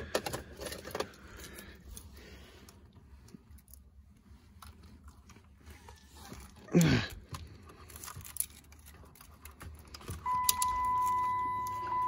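Car key jangling and clicking as it is turned in a newly fitted ignition switch on a 2005 Chrysler 300, with one louder knock partway through. The engine does not crank. From about ten seconds in, a steady electronic warning tone from the car starts and holds.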